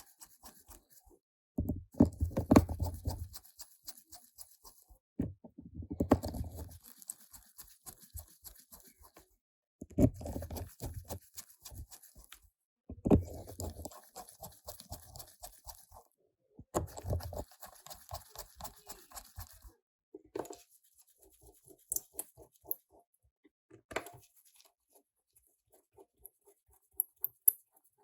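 Screwdriver driving the tiny screws back into a smartphone's frame: about five scratchy bursts of rapid clicking, each two to three seconds long, then a few lighter single taps and clicks near the end.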